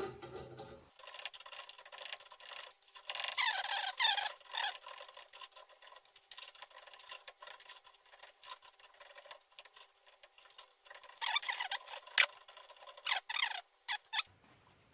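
Hand thread tap being worked into a rusty threaded hole: scattered metal clicks and ticks, with two spells of squeaking as the tap cuts through the rust.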